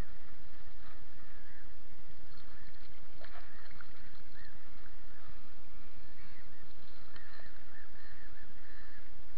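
A small bream splashing at the surface as it is scooped into a landing net beside an inflatable rubber boat, with the sharpest splashes about three seconds in, over a steady low rumble.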